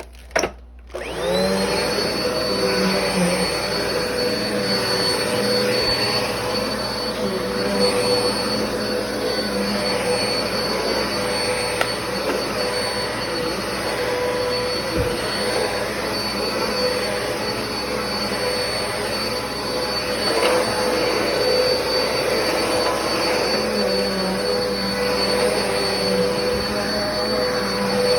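A Black & Decker vacuum cleaner is switched on about a second in. Its motor spins up with a rising whine, then runs steadily with a high-pitched whine over the rush of air.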